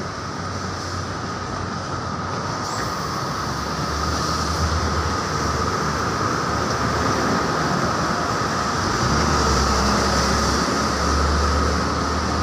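Steady road traffic noise with a low rumble that grows louder in the second half, and a constant whine running through it.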